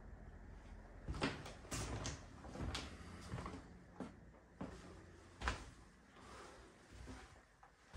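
Footsteps on wooden floorboards: a run of soft knocks, about one every half second to a second, which thin out after about five and a half seconds.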